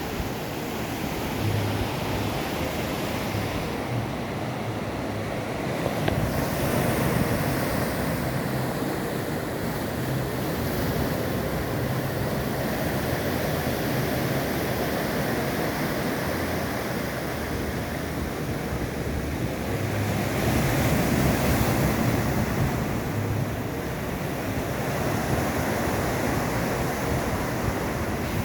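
Ocean surf washing onto the beach: a steady rushing of breaking waves that swells louder about six seconds in and again about twenty seconds in, with wind buffeting the microphone.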